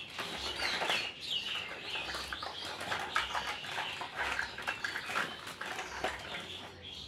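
Plastic toys clattering and knocking together as a hand rummages through a cradle full of toys, with birds chirping throughout.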